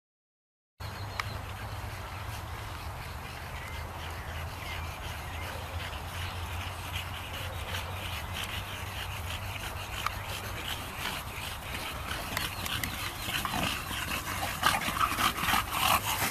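English bulldogs breathing hard and panting on leashes while they move through grass, the rasping breaths growing louder over the last few seconds as the dogs come close. A second-long dropout in the sound comes right at the start.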